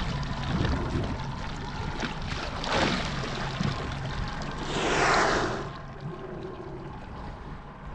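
Whale surfacing close beside a small boat: water washing, with a short rush about three seconds in and a louder rushing burst of about a second near the middle, the whale blowing or breaking the water. A steady low hum runs underneath.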